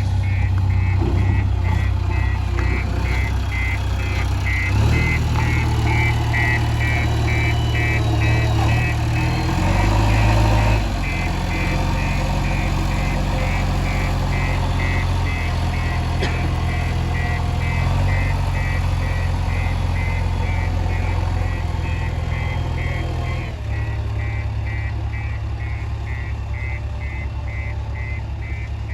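JCB 3DX Eco Xpert backhoe loader's diesel engine working, its note rising under load around five and ten seconds in, then easing near the end, while a reversing alarm beeps steadily throughout.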